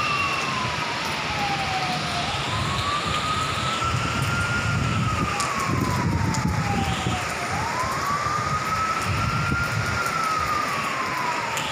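A siren wailing slowly, its pitch rising and falling about every five seconds, over the steady hiss of heavy rain.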